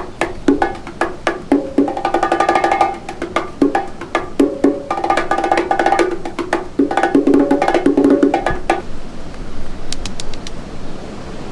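A person making rhythmic mouth noises, fast clicks and pops mixed with short hummed notes, like beatboxing. It stops about nine seconds in, leaving a few faint clicks.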